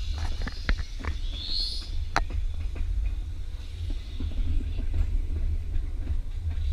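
Ride noise on the open top deck of a running electric tram: a steady low rumble, largely wind on the microphone, with scattered clicks and knocks from the wheels on the track. A brief rising whistle comes about one and a half seconds in.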